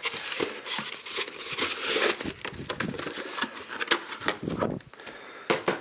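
Cardboard box and its plastic wrapping handled and moved aside: a dense rustle of card and plastic for about two seconds, then scattered light taps and clicks.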